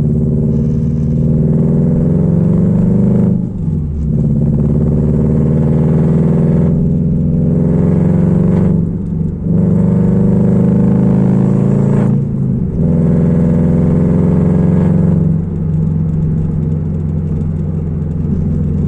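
Ford Fiesta engine running hard through unequal-length headers and a 2.5-inch open-pipe exhaust, its revs held up and slowly climbing. The revs dip briefly and recover four times, at about three and a half, nine, twelve and a half and fifteen and a half seconds in.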